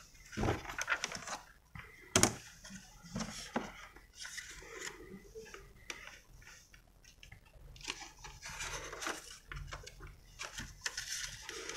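Thin clear plastic keyboard membrane sheet being lifted, flexed and laid back on the keyboard's circuit layer, giving irregular rustles and soft clicks, with one sharp knock about two seconds in.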